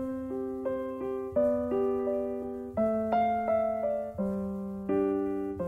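Gentle background piano music: soft chords struck and left to ring, changing about every second and a half.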